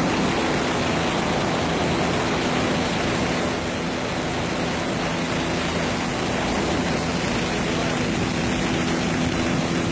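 The engine and propeller of an aircraft running in a steady drone, with a constant low hum under a rushing noise.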